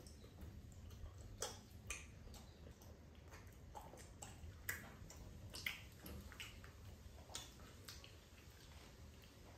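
Faint, wet mouth clicks and smacks of people chewing sticky rice cake, irregular, about a dozen, the loudest about halfway through.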